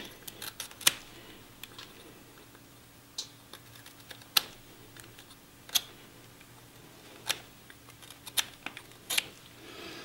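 Pocketknife blade making small chip cuts in a bark-covered twig: a string of short, sharp snicks and clicks about a second apart as the blade bites in and chips come free.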